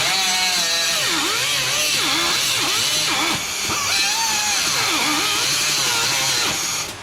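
Handheld electric power tool grinding on metal: a loud hissing grind, with the motor's pitch repeatedly dipping and picking up again as it is pressed in and eased off.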